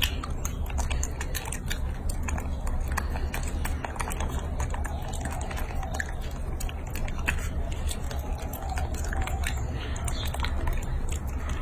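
Macaques chewing and biting soft, wet fruit close to the microphone: irregular small clicks and smacks throughout, over a steady low rumble.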